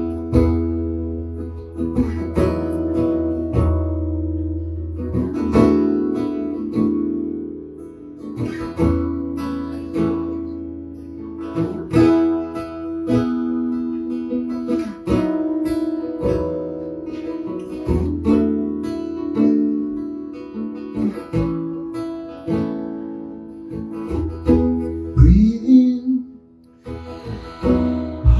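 Acoustic guitar playing the instrumental introduction to a song: chords are struck and left to ring, a new one roughly every second or two.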